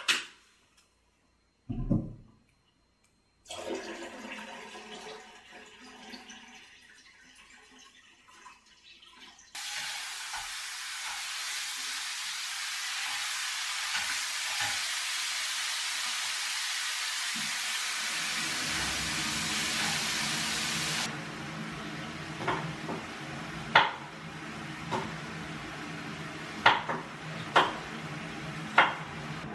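Bulgogi frying in a pan, a loud steady sizzle that starts and stops abruptly, with a utensil clinking against the pan several times near the end.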